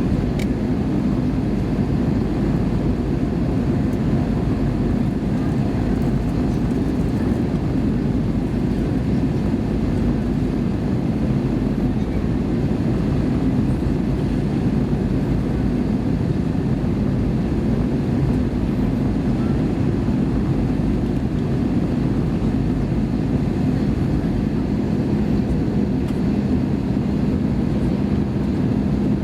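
Airbus A320 cabin noise: a steady, loud rumble of engines and airflow, with a faint steady hum running through it.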